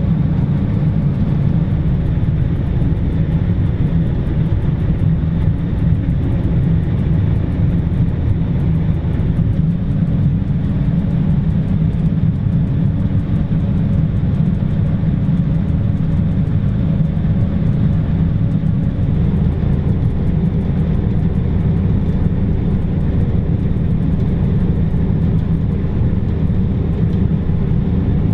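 John Deere self-propelled forage harvester working under load, chopping standing corn, heard from its cab: a steady, deep drone of engine and chopping machinery that goes on without a break.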